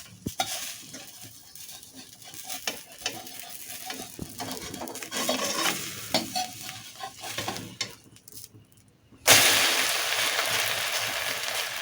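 A spoon stirring and clinking in a pan or bowl, then, after a brief pause, a sudden loud sizzle of egg hitting hot oil about nine seconds in, frying steadily for the omelette.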